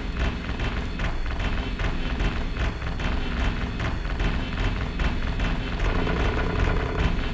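Live electronic noise music: a dense low rumble under a regular pulse of faint high clicks, about three a second. A steady mid-pitched tone comes in about six seconds in.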